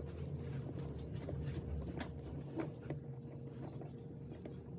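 Faint, scattered clicks and scrapes of a flathead screwdriver turning the small mounting screws of a wall-plate adapter into a dimmer switch, over a low steady hum.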